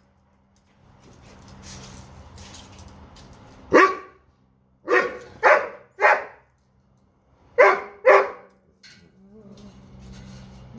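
Doberman barking in short bursts: one bark, then three in quick succession, then two more. He is barking in frustration at a bone that he dropped under a dog cot and can't reach.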